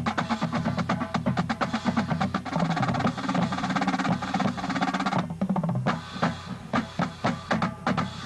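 Marching drumline with snare drums playing a fast, dense passage of rolls and rapid strokes. About five seconds in it thins to a string of separate accented hits, and it stops at the end.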